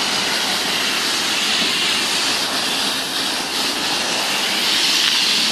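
Self-service car wash pressure-washer lance spraying a jet of water onto a car's side panels: a steady hiss.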